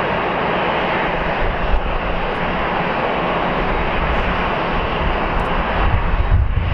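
Airbus A330-300's Pratt & Whitney PW4000 turbofans running at low taxi thrust: a steady, even jet engine noise. A low, uneven rumble grows in under it near the end.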